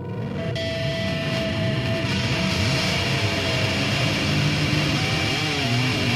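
Motorcycle engine running and revving. It fades in at the start and holds steady, and its pitch wavers up and down near the end.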